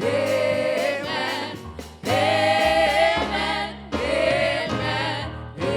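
Gospel singing: voices sustain a repeated 'Amen' refrain, a new phrase about every two seconds, over low held backing notes.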